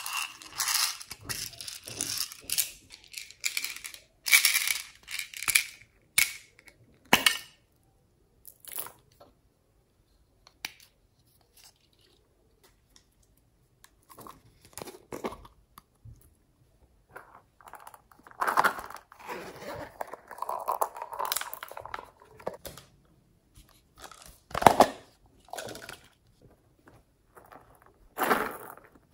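Small plastic novelty containers being handled and opened by hand, with slime worked out of them: irregular clicks, scrapes and crackly, tearing sounds in bursts, with quiet gaps between.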